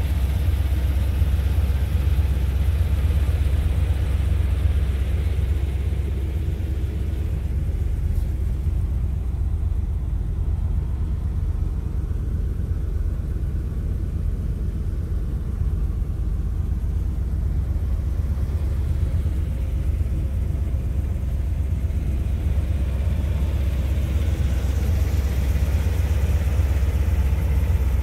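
1981 Corvette C3's 350 cu in (5.7 L) V8 with Rochester four-barrel carburettor idling steadily, a deep even rumble.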